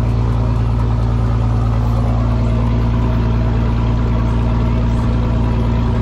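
Fishing boat's engine running loud and steady at an even speed.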